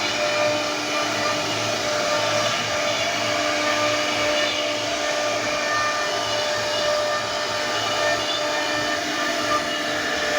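CNC router spindle running with a steady high whine while its bit carves wood.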